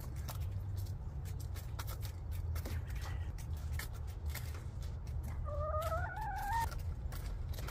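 Hens pecking at a cabbage leaf and feed pellets, a run of quick sharp taps, with one hen giving a single rising, wavering call about five and a half seconds in that lasts about a second. A low steady rumble runs underneath.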